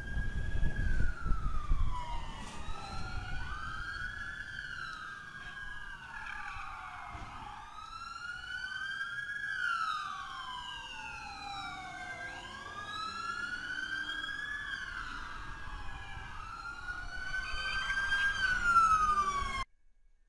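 Police car sirens wailing, two or more at once, their rising and falling sweeps overlapping out of step. There is a heavy low rumble of vehicles in the first couple of seconds, and the sirens swell near the end before cutting off suddenly.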